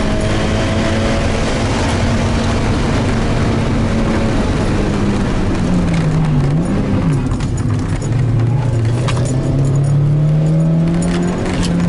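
Mazda NB Roadster (MX-5 Miata) four-cylinder engine heard from inside the cabin, held at high revs under load. About halfway through, the revs dip and come back, then fall to a lower pitch and climb steadily again, with light ticks and rattles in the second half.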